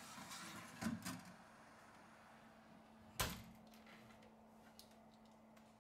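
Glass door of a mobile-phone drying cabinet being shut, with a single sharp click about three seconds in, after a couple of light knocks from the wire phone rack being slid in about a second in. A faint steady hum runs underneath.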